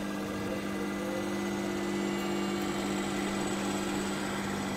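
Diesel injector test bench running: its motor and high-pressure pump give a steady, even hum while a common-rail injector is under test.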